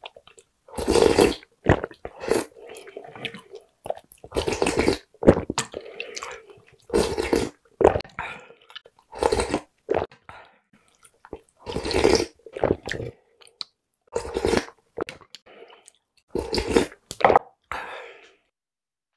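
A person slurping seafood ramyeon broth with rice in it from a wooden ladle, a short slurp every second or two.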